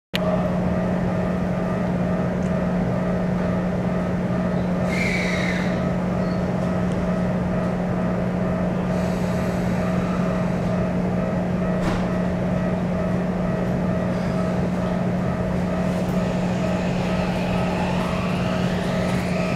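Steady electrical hum of a Keikyu New 1000 series electric train standing with its doors open, heard inside the car. There is a short falling chirp about five seconds in, and a tone rising in pitch near the end.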